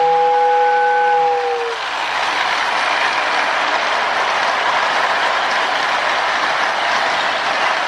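A prewar Marx Commodore Vanderbilt electric toy locomotive running with a string of small tin passenger cars on tin track: a steady clattering rattle of wheels and motor. For the first second and a half a steady two-note whistle sounds, then stops.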